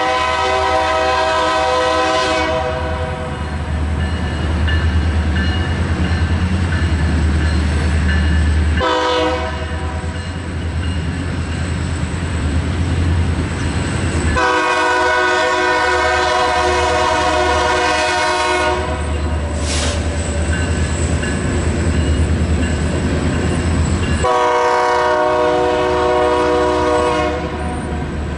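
BNSF diesel freight locomotive's air horn sounding for a grade crossing, several tones together in each blast: one blast ending about two seconds in, a short blast near nine seconds, then two long blasts. A steady low rumble of the approaching train runs underneath.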